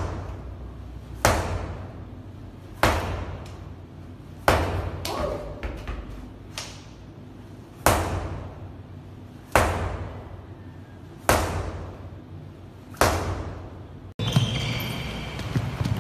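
Medicine ball thrown hard against a gym wall and caught, thudding about eight times at an even pace of one every second and a half or so. Each hit rings briefly in the room's echo.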